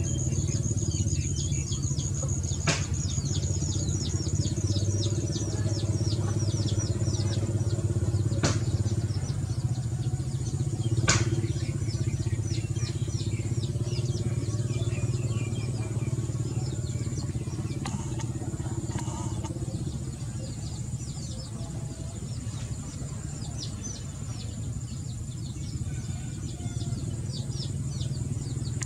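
A steady low motor hum, with small birds chirping in quick, high, falling notes over it and a few faint clicks.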